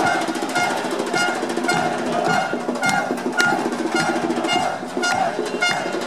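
Football supporters' street band beating drums, with a high, ringing knock keeping a steady fast beat, while a dense crowd sings along.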